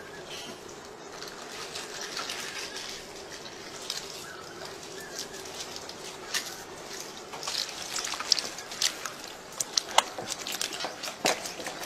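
Wet squelching and dripping as thick marinade is worked by gloved hands over a crocodile carcass, with a run of sharp wet slaps and clicks in the second half.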